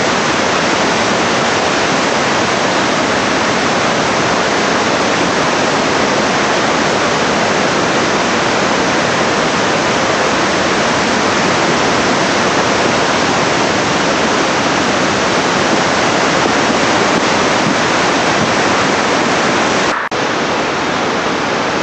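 Floodwater in a flash-flooding creek rushing past, a loud, steady wash of churning water with a brief break near the end.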